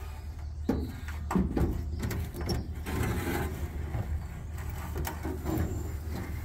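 Scattered knocks, scrapes and rustles as a wooden rod and a wiring loom are worked through the car's body, over a steady low hum.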